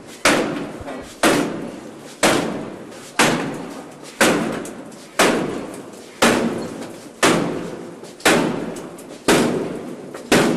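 A door being struck hard again and again as police try to force it open. The blows come about once a second, each a sharp bang that dies away slowly in the stairwell, and the door does not give.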